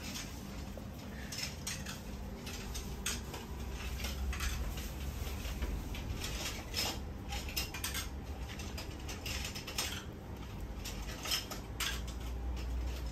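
Gloved hands handling and pleating dumpling wrappers: many small clicks, taps and rustles, with a metal spoon now and then scraping filling and tapping the bowl. A low hum runs underneath.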